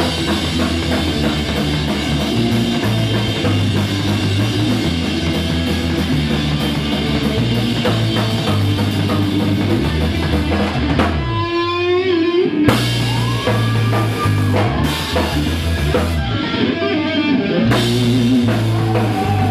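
Live punk rock band playing an instrumental break with drums, bass and electric guitars. About eleven seconds in the band drops out briefly under a bending, wavering guitar line before crashing back in, and it thins again briefly near the end before the full band returns.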